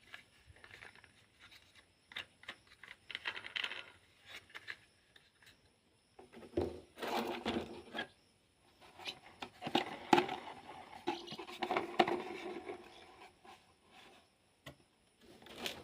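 Small plastic toy vehicles being handled and moved about: irregular clicking, clattering and scraping, heaviest from about six to thirteen seconds in.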